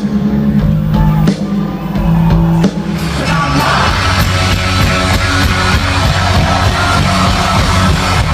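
Loud rock music with singing. The sound changes abruptly a little under three seconds in and is fuller after that.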